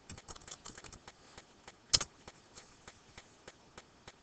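Laptop keyboard keys clicking as a word is typed in a quick run, then one sharper, louder key press about two seconds in, followed by a few scattered clicks.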